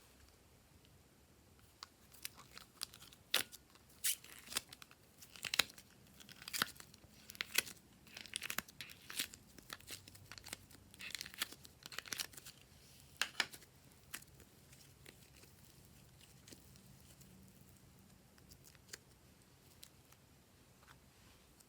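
Glossy slime being squished and pulled by hand close to the microphone, giving quick sticky clicks, pops and crackles. The crackles are dense from about two seconds in until about fourteen seconds, then die down to a few faint ones.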